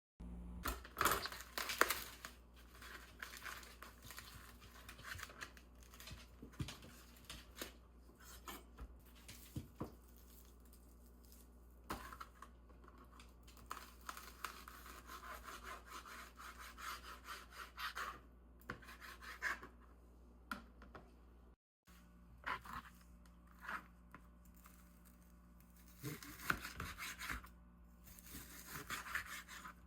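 Paper being handled: irregular rubbing, scraping and tearing with scattered clicks, over a low steady hum.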